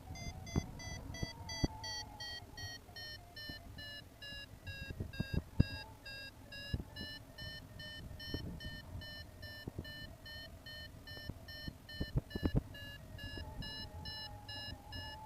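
Paragliding variometer beeping in a fast, steady train, its pitch sagging and then climbing again as the climb rate changes, the beeping tone that signals the glider is in rising air. Gusts of wind thump on the microphone, strongest about five and twelve seconds in.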